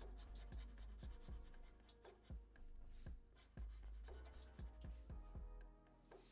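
Black marker pen scratching and tapping on paper in short, irregular strokes and dots, faint.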